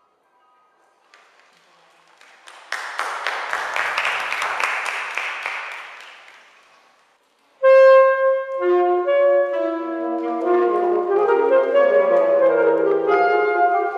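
Audience applause swells and dies away. Then, about halfway through, a saxophone quartet starts a piece with a loud, sudden chord and goes on in sustained, layered chords.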